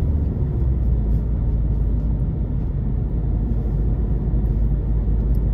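Steady rumble of road and engine noise inside a car's cabin while driving at highway speed.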